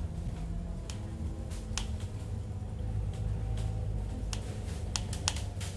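Inside a moving vehicle: a steady low rumble with irregular sharp clicks and rattles, several coming close together near the end.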